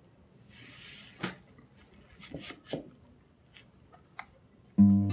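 A few soft clicks and knocks in a quiet room, with a short hiss about half a second in. Just before the end, acoustic guitar music starts abruptly and is the loudest sound.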